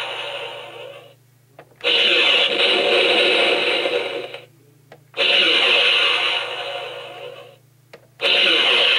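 Electronic sound effects from the Hasbro MTT toy's built-in speaker, set off by its center button: a string of clips about two and a half seconds long, each starting loud and fading out, with short pauses between them. The sound is thin and tinny, as from a small toy speaker.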